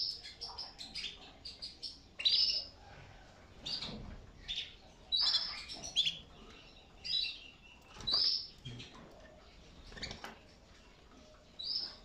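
Caged domestic canaries giving short, high chirping calls every second or two, with a quick run of chirps at the start.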